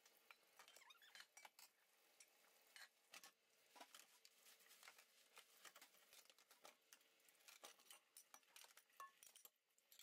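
Faint clatter of plastic dishes and lids being handled and washed in a stainless-steel kitchen sink: many scattered light knocks and clinks.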